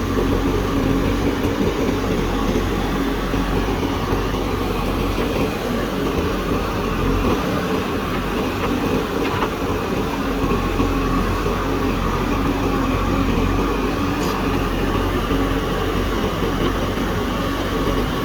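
Diesel engine of a JCB backhoe loader running steadily at work, a constant low drone with no breaks.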